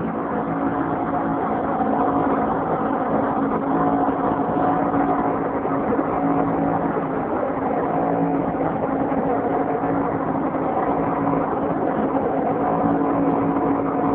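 Twin Yamaha 75 hp outboard motors running steadily under way, below full throttle, over the rush of the boat's wake.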